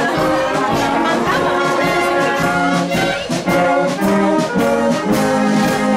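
Brass music, held chords of brass instruments over a steady beat.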